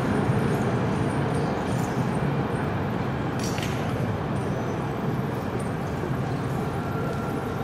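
Alstom Citadis 403 tram rolling away on street track, its running noise fading gradually into general street noise. A short higher hiss comes about halfway through.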